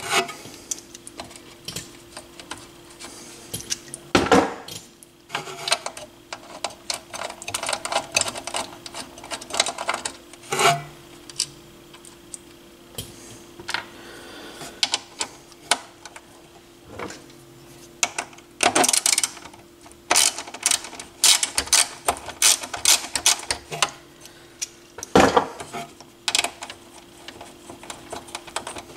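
Scattered metallic clicks, taps and knocks of hand tools and small metal parts on a turntable chassis as a bracket is being removed, more frequent in the second half, over a faint steady hum.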